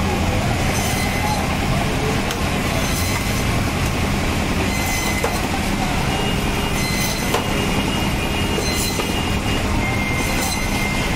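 Electric bone-saw band saw running steadily with a constant motor hum while its blade cuts through tuna loin. A thin high whine comes and goes every second or two.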